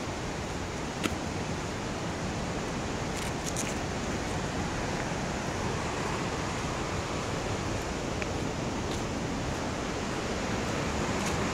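Steady rush of falling water from a waterfall on Eagle Creek, growing a little louder near the end, with a few sharp clicks of footsteps on the stony trail.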